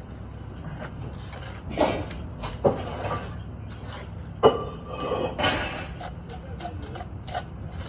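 Mason's trowel clinking sharply against brick three times, then scraping across brick and mortar.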